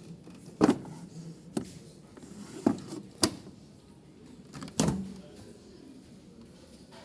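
Washer and dryer doors being opened and shut: five sharp clunks, unevenly spaced over about four seconds, over a steady background hum.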